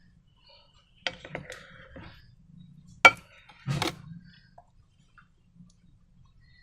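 Slime-making handling sounds: a few sharp clicks and knocks, the loudest a very sharp snap about three seconds in, followed by a short rustle.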